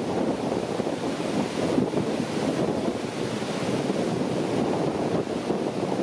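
Grawa waterfall and the mountain stream below it rushing over boulders: a steady, dense noise of falling and cascading water.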